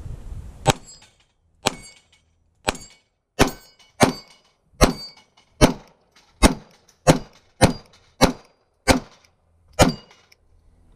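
Glock 17 Gen 4 9mm pistol firing a string of about thirteen shots, roughly one every half second to a second, at a steel plate rack. Several shots are followed by the brief ring of a struck steel plate. The string stops about a second before the end.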